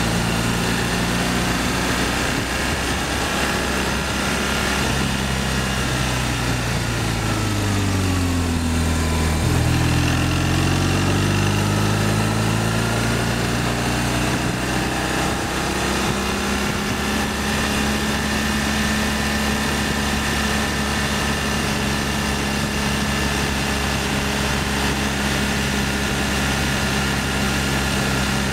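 BMW R1200ST motorcycle's boxer-twin engine running at road speed, with wind rush. Its revs fall from about five seconds in to about ten, rise again, then hold steady.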